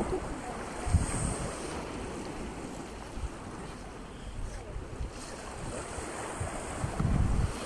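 Wind blowing across the microphone over the wash of small waves on a sandy shore, with low buffeting about a second in and again near the end.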